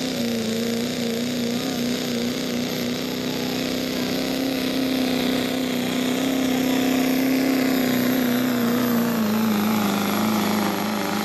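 Pro street diesel pickup pulling a sled under full throttle: the diesel engine runs hard at steady high revs, with a high whine over it. The revs drop slightly near the end.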